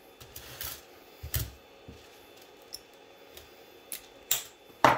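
Small side cutters snipping through nylon zip ties on a filament spool: a few sharp snips, the loudest just before the end, with light handling noise between them.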